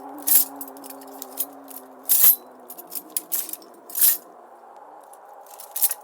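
Sharp metallic clinks, one roughly every two seconds, over a low eerie droning tone that sinks a little in pitch and fades out about halfway through.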